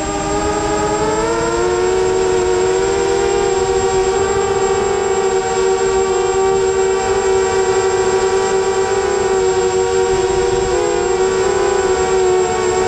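FPV drone's electric motors and propellers whining, heard from the onboard camera. The pitch climbs about a second in, holds steady, and wavers briefly near the end.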